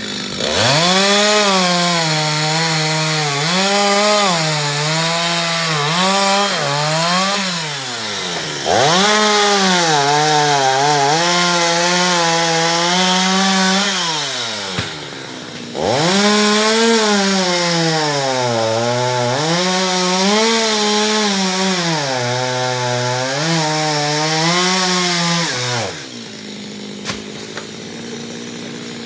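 Two-stroke chainsaw cutting through mango wood in three long runs. The engine pitch sags as the chain bites and climbs again as it frees, then drops away to a quieter idle between runs and after the last one.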